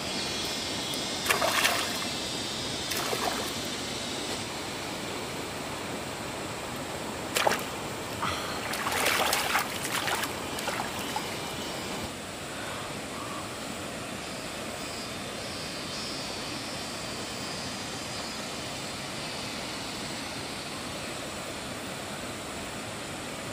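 Shallow water splashing in a few short bursts, about a second and a half in, around three seconds, and from about seven to ten seconds, over a steady trickle of running water.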